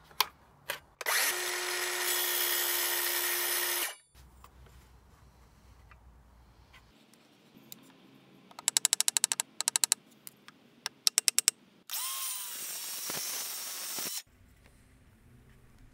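DeWalt 18V cordless circular saw running for about three seconds as it cuts a thin board. Then come two quick runs of light hammer taps, and the saw runs again for about two seconds near the end.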